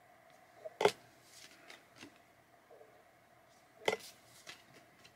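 Pokémon trading cards being handled as they are flipped through one by one: two sharp card snaps or taps about three seconds apart, with fainter rustles of card stock between them.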